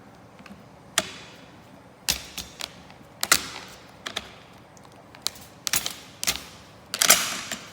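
Steel parts of an RPK rifle clacking and clicking as the bolt carrier is seated in the receiver and worked during reassembly: a series of sharp metal clicks, loudest about three seconds in, with a longer sliding clatter near the end.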